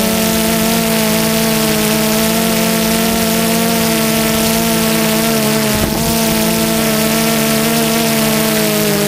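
Multirotor drone's electric motors and propellers whining steadily in flight: a stack of steady tones over a hiss, drifting slightly in pitch, with a brief break about six seconds in.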